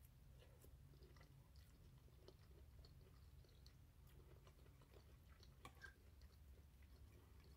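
Faint close-up chewing of a mouthful of seafood pasta, with scattered small mouth clicks over a low steady hum.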